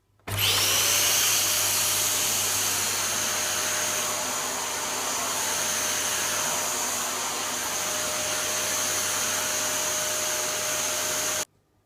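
Dyson DC54 cylinder vacuum cleaner switched on: the motor spins up with a rising whine, then runs steadily with a high whine over a loud rush of air. It stops abruptly near the end.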